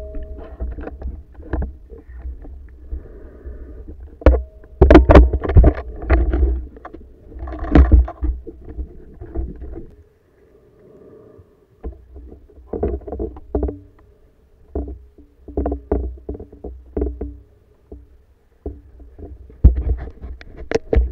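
Underwater knocks, clicks and scrapes as a spearfisher and speargun push through submerged reed stems, over a low rumble of moving water against the camera housing. The knocks come in irregular clusters, with a brief near-silent gap about ten seconds in.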